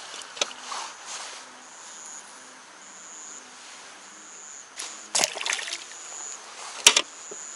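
Water splashing at the bank: a few sharp splashes about five seconds in and the loudest near the end. Night insects chirp steadily and high-pitched throughout.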